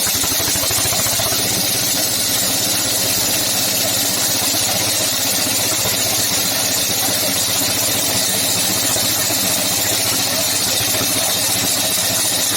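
Walk-behind concrete cutter's engine running steadily, with a steady high hiss over it.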